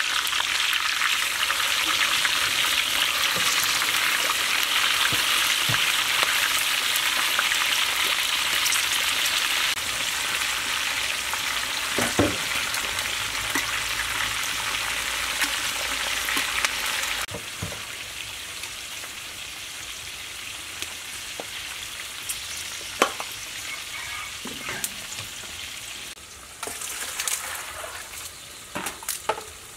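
A whole snakehead fish deep-frying in a wok of hot oil: a steady loud sizzle and bubbling. The sizzle drops in level about a third of the way in and again about halfway through, with scattered light clicks and knocks in the quieter later part.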